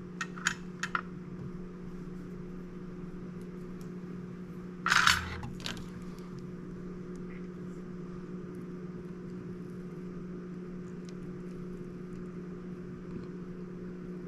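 Small clicks and a short clatter from handling the circuit board and tools at a workbench during soldering, over a steady electrical hum. The loudest is a brief knock-like clatter about five seconds in.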